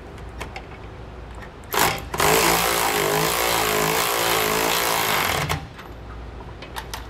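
A power tool driving a 19 mm socket to run down the nut on a trailer shock-absorber bolt. It gives a short blip, then runs steadily for about three seconds with a wavering tone and stops suddenly. A few light metal clicks follow near the end.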